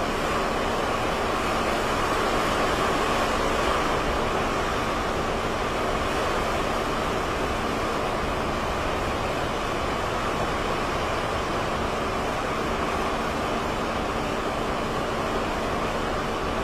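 Strong hurricane wind blowing steadily through palms and trees: a continuous rushing noise with no let-up, with low rumble from gusts on the microphone.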